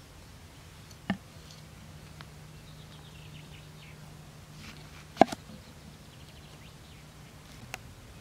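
A few sharp knocks: one about a second in, the loudest with a quick double about five seconds in, and a lighter one near the end. They sit over a faint steady low hum, with faint bird chirps in between.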